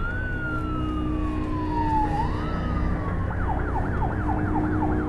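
Police car siren wailing: a tone rising and then slowly falling, twice, then switching to a fast yelp of about three sweeps a second for the last couple of seconds.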